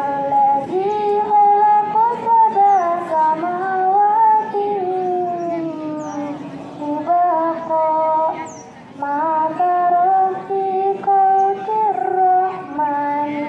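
A girl's voice chanting Quranic recitation (tilawah) in Arabic, in long held notes that bend and ornament, with short pauses for breath between phrases.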